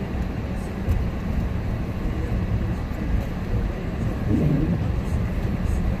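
Steady low rumble of a car driving on a snow-covered road, heard from inside the cabin: engine and tyre noise.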